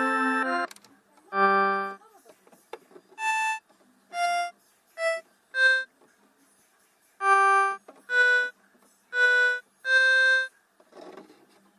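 Casio electronic keyboard: a held chord breaks off under a second in, then single notes are played one at a time, each short and separated by silent pauses.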